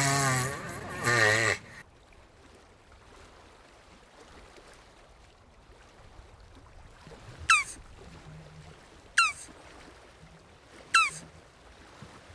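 Jabuti (tortoise) vocalizing: a wavering, bleat-like call in the first two seconds. Then a quiet stretch, followed by three short, sharp squeaks falling in pitch, about two seconds apart.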